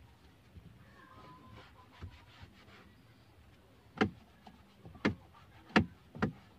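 Quiet car cabin, then four short sharp knocks in the second half, about a second apart or less, from hands working on the steering wheel while it is being wiped down with a protectant.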